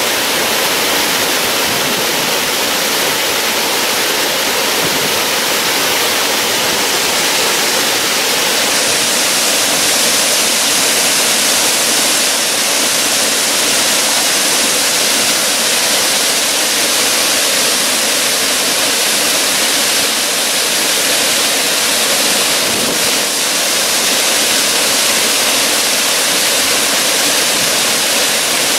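Waterfall running over rocks and ice: a steady, unbroken rush of falling water.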